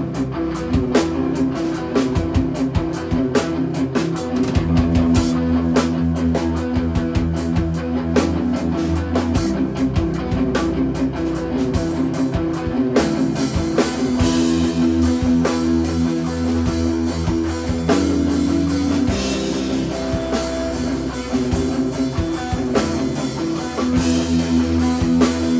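A three-piece instrumental rock band playing live: electric guitar over a drum kit, loud and dense. The arrangement shifts about halfway through.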